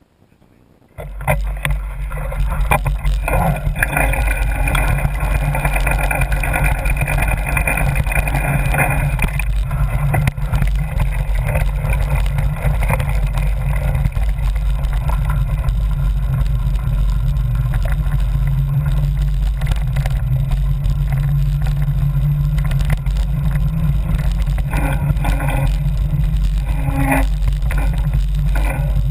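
Wind buffeting a moving mountain-bike camera's microphone, with a steady low rumble and rattling knocks from the bike rolling over a dirt trail. It starts suddenly about a second in and stays loud.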